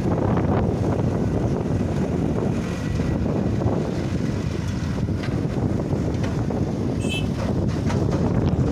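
Heavy diesel construction machinery (dump trucks and an excavator) running with a steady low rumble, mixed with wind buffeting the microphone. A brief high chirp about seven seconds in.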